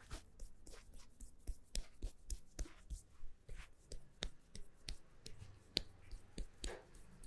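Hands striking a head in a quick rhythm of sharp taps and slaps during a head massage, about three strikes a second.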